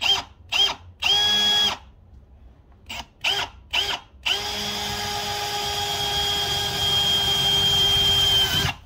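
Handheld power drill boring a bolt hole through a fender: a few short trigger bursts and a brief run, more short bursts, then a steady run of about four seconds that stops near the end. This is the second mounting hole.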